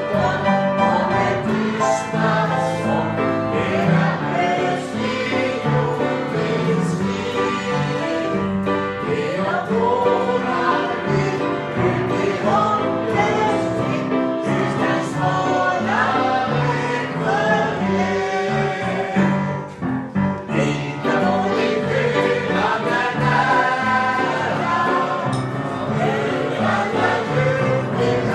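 Voices singing a song together to an acoustic guitar accompaniment.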